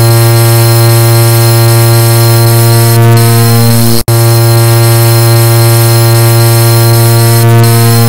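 Car horn sound edited into one continuous, very loud, steady low-pitched tone with no gaps between beeps, cutting out for an instant about four seconds in.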